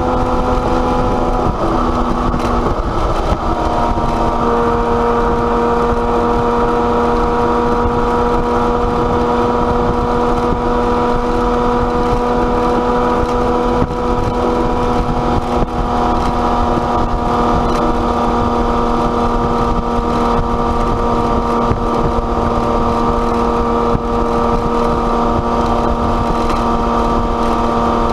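Porsche 911 Carrera S flat-six with an aftermarket exhaust running at a steady pace, giving a constant drone over a loud rushing noise. The pitch shifts briefly a couple of seconds in, then holds steady.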